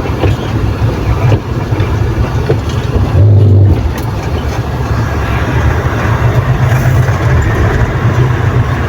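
Dump truck driving on a rough road, its engine and road noise a steady low rumble, with a brief louder low jolt about three seconds in.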